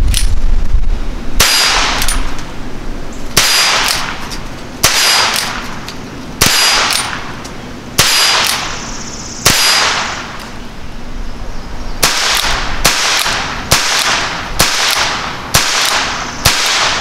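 Ruger Super Wrangler single-action revolver firing .22 rimfire rounds, a full cylinder of six sharp shots about a second and a half apart. After a short pause, another six shots about a second apart.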